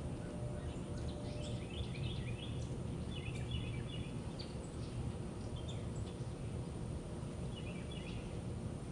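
Birds chirping in short groups of quick high notes, four or five times, over a steady low background rumble.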